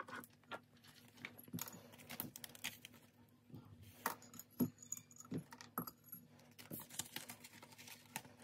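Faint handling noises on a tabletop: paper bills rustling and irregular light clicks and taps as small objects such as a jar and a pen are picked up and set down.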